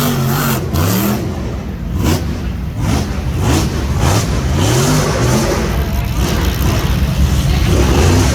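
Rock bouncer buggy's engine revving up and down repeatedly, over and over, with scattered sharp knocks.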